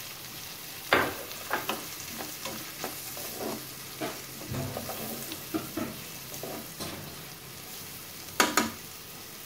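Diced onions sizzling in butter in a frying pan while being stirred with a plastic slotted spoon: a steady hiss under scattered scrapes and clicks of the spoon against the pan, with a sharp knock about a second in and a louder one near the end.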